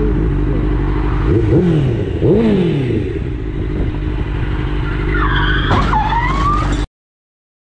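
Motorcycle engine running, revving up and back down twice in the first few seconds. About five seconds in, a high wavering tyre squeal begins as the bike brakes hard for a car pulling out across its path, and the sound cuts off suddenly about a second and a half later.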